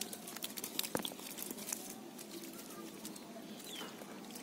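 Small fish flapping in a wet cast net on mud while hands work the mesh: irregular light clicks and pattering.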